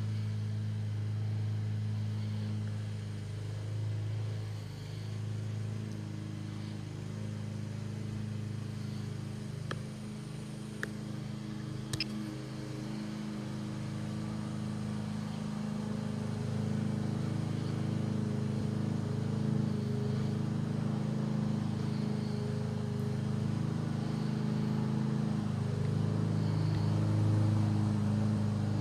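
Multirotor drone's motors and propellers humming steadily in flight, the pitch wavering slightly and growing a little louder in the second half. Two short sharp clicks sound a little after the middle.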